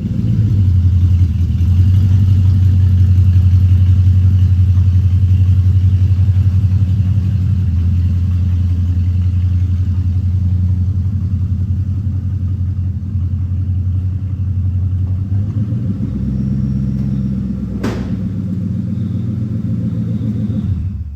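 Crown Vic-swapped Ford F100's V8 running through a homemade dual exhaust with old MAC mufflers and a Corvette H-pipe, a deep steady exhaust note. It changes pitch slightly about three-quarters of the way through, and a single sharp click comes near the end.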